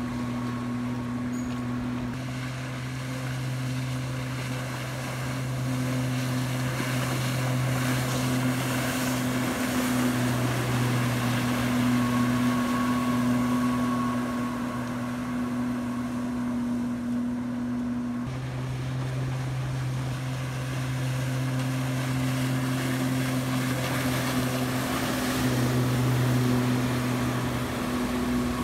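Jet ski engine running as it tows a tube, a steady low drone that shifts in pitch a few times, over rushing water and wind noise.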